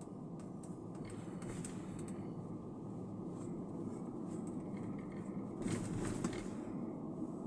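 Steady low road and engine noise inside a moving car's cabin, with scattered faint clicks and rattles, the strongest about six seconds in.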